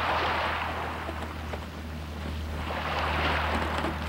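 Rushing water and waves, swelling twice for about a second each, over a steady low hum.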